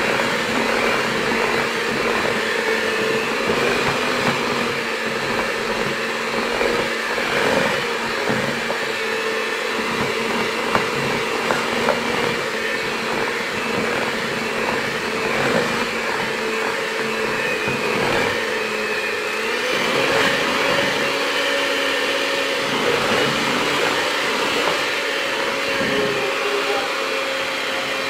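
Electric hand mixer running steadily, its beaters whisking a cake batter in a bowl. The motor's hum steps up slightly in pitch about two-thirds of the way through.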